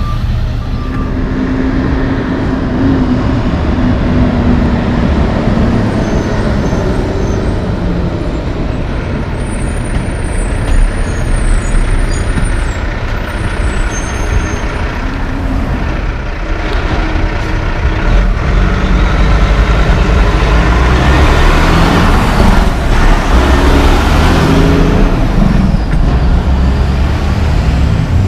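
Heavy diesel dump trucks and street traffic running past, a steady low engine rumble that grows louder in the second half as a truck accelerates, its engine pitch rising in steps.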